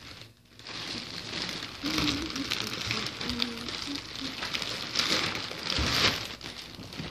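Rustling and crinkling as a sequined fabric backpack is handled close to the microphone, with many small clicks and scrapes.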